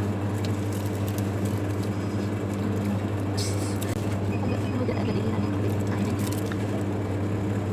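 Steady low electrical hum of a shop interior, with scattered light clicks and a brief rustle about three and a half seconds in.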